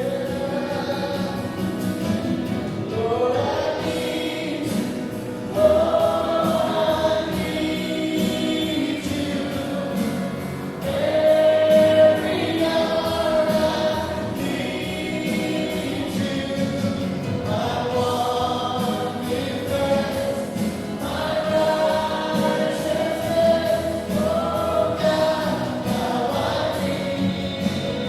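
Congregation and worship band singing a Christian worship song, voices with instrumental backing.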